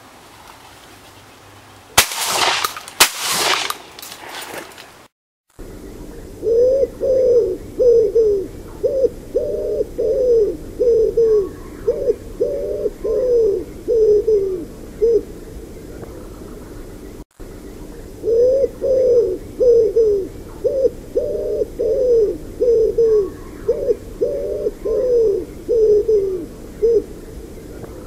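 Two shotgun shots about a second apart, then a wood pigeon's cooing song: low coos in repeated phrases, the same run of phrases heard twice with a brief break between.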